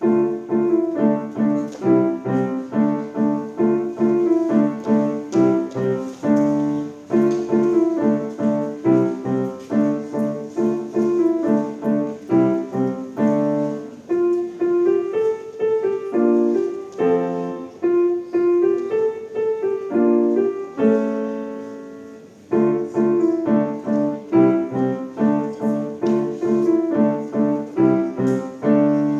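Bösendorfer grand piano being played: a steady run of notes, with one held chord left to fade about two-thirds of the way through before the playing picks up again.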